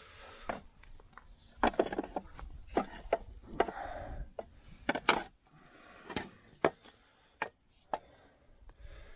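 Irregular knocks and clunks of steel upper control arms (A-frames) being handled and set against each other, about a dozen sharp hits spread unevenly with short quiet gaps.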